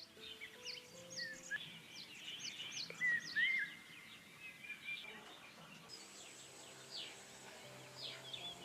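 Small birds chirping in quick, repeated downward-sweeping calls, with a louder warbling phrase about three seconds in, over soft background music.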